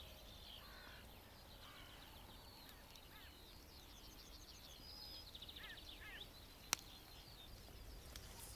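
Near silence outdoors, with faint songbirds chirping and twittering throughout and a single sharp click about two-thirds of the way through.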